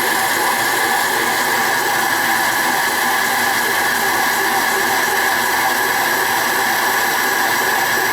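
Homemade metal lathe running steadily while machining its own lead screw from hard steel, a constant even machine whir with a steady higher-pitched whine.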